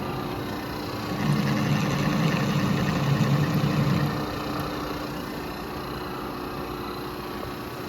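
Manual lathe running steadily. About a second in, a louder mechanical sound with fine rapid ticking comes in for about three seconds as the half-nut engages and the carriage feeds the tool along the work on a thread-cutting pass. It then settles back to the lathe's steady running.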